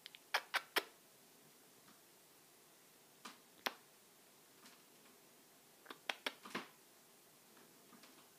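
Quick lip-smacking kisses given to a pet cockatiel, in three short runs of two to four sharp smacks a few seconds apart.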